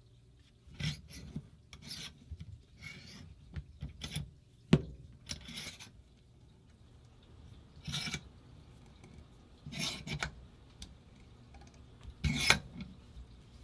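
Hands and a gripping tool scraping and rubbing against an Angel LCD paintball marker while working a stiff, stuck part loose. The noise comes in short bursts every second or two, with one sharp click about five seconds in.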